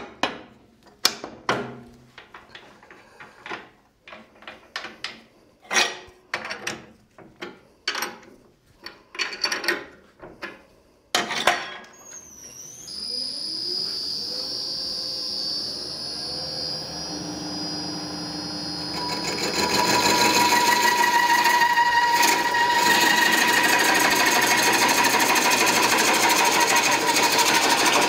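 Irregular knocks and clunks as the wood blank is handled on a bowl coring machine. About 11 seconds in the machine's motor starts and spins the blank up with a rising whine. From about 19 seconds the coring knife bites into the spinning blank with a loud, steady cutting noise and a ringing tone.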